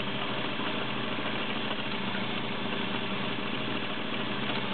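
Vintage White 565 all-steel sewing machine running steadily at speed, its 1.3-amp motor driving the needle through an arrowhead cam-pattern stitch.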